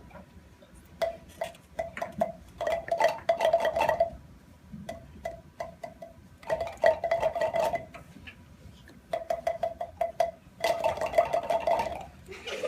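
Palm pipes, plastic tubes slapped against the palm, popping in quick runs at one mid pitch, several children at once, in four bursts separated by short pauses.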